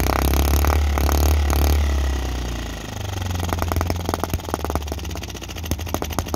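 Microcosm M25 sideshaft four-stroke model gas engine idling with a quick, even run of sharp firing ticks, running rich. A low rumble in the first couple of seconds eases off about three seconds in.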